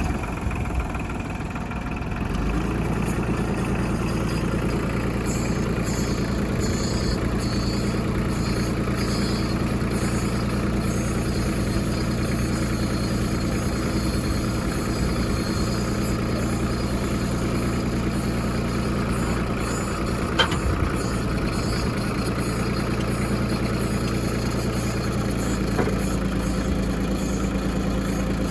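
Ford 1720 compact tractor's three-cylinder diesel engine running steadily just after starting, getting louder about two seconds in as it is throttled up to work the backhoe. A single sharp knock sounds about two-thirds of the way through.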